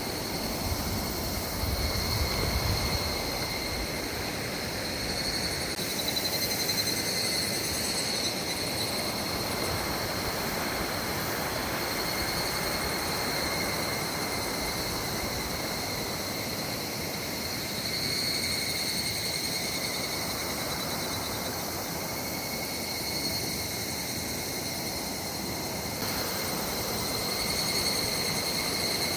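Clear mountain river flowing over stones, a steady rushing of water, with insects keeping up a continuous high-pitched drone over it.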